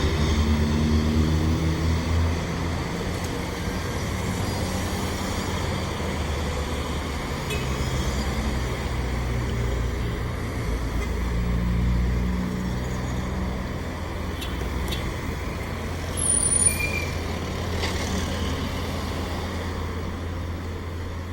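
Cessna 208 Caravan's single turboprop engine and propeller running steadily: a continuous low hum whose tones shift slightly in pitch. A brief sharper sound stands out about sixteen seconds in.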